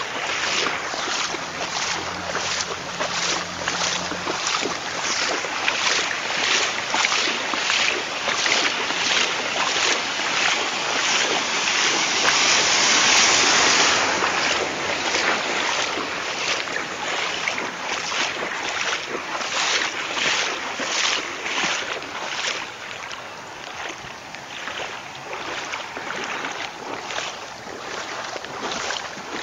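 Footsteps splashing through shallow floodwater at a steady walking pace, about two splashes a second, over a rushing noise that grows louder for a couple of seconds about halfway through.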